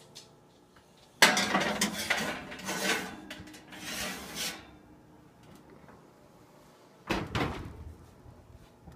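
Metal baking pan set down on the oven rack with a clank and slid in with scraping and rattling for a few seconds, then a second short clatter about seven seconds in as the oven is shut.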